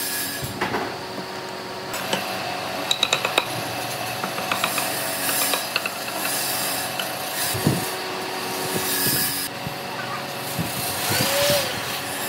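Wood being worked with tools: rubbing and scraping sounds, with a quick run of sharp knocks about two to three and a half seconds in.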